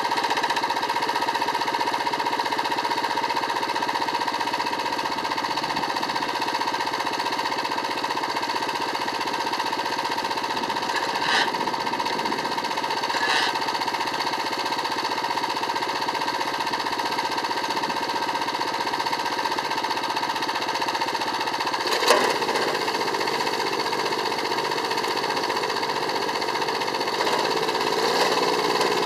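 Yanase 810HST snowblower engine running steadily after repair. A couple of light clicks and one louder knock break in, and the engine note shifts near the end.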